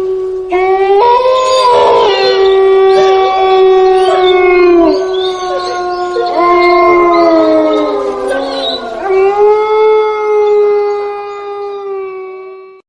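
Several dogs howling together in long, overlapping held notes that rise and fall in pitch, fading and cutting off at the end.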